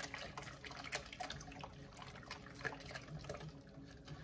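Wire whisk stirring a thin milk-and-egg custard in a metal pot: soft sloshing of the liquid with irregular light clicks of the wires against the pot.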